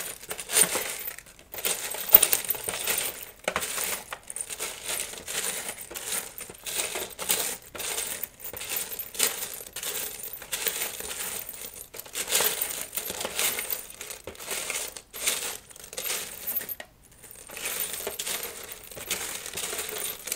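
Small metal screws and nuts clinking and rattling continuously as hands rummage through a parts tray searching for nuts, with a short pause near the end.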